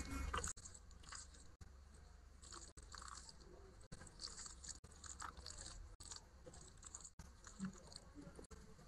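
Faint, close-miked wet squishing and small crackles of fingers mixing and kneading cooked rice with curry on a plate, a little louder at the very start.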